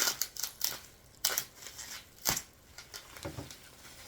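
Bubble-wrap packaging being handled and pulled apart: irregular crinkling rustles and sharp clicks, the loudest about two seconds in.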